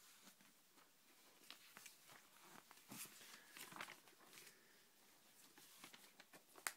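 Faint rustling and crinkling of glossy magazine pages being handled and turned, in scattered short bursts, with one sharp click near the end.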